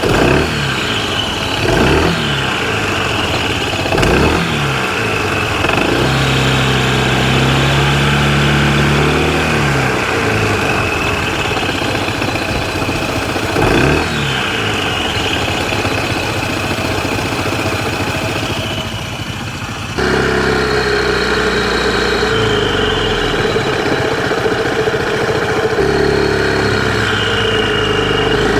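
Honda ADV160 scooter's single-cylinder engine and drivetrain running, revved briefly four times in the first half and otherwise held steady, with the abnormal whining noise, likened to crying, that started at about 50 km from new and has been getting louder.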